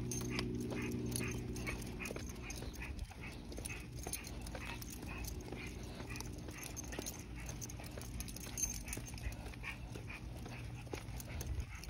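A dog making short, quick repeated sounds, about three a second for the first half and sparser after, over a low steady hum that fades out a few seconds in.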